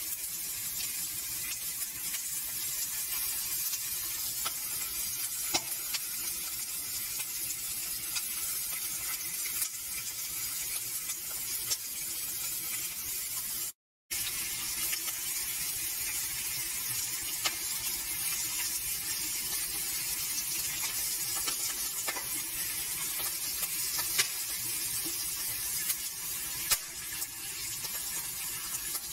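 Flour-dusted Atlantic herring frying in hot oil in a pan: a steady sizzle with scattered small pops and crackles. It breaks off for a moment near the middle.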